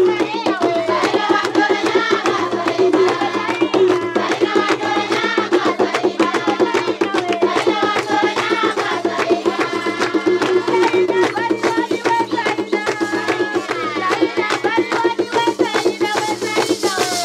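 Live vimbuza dance music: tall wooden hand drums beaten in a fast, steady rhythm under group singing, with a rattle shaking along.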